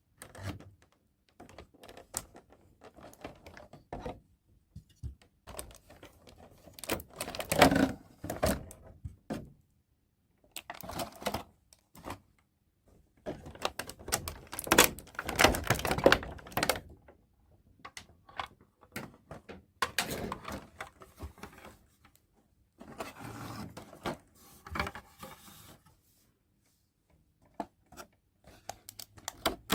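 Close-up handling of a toy unboxing: bursts of small clicks, taps and rustling of plastic pieces and packaging, with short silent gaps between them.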